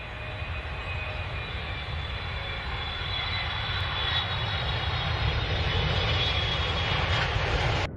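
Jet airliner engines in flight: a steady rushing noise with a faint high whine, slowly growing louder and cutting off abruptly just before the end.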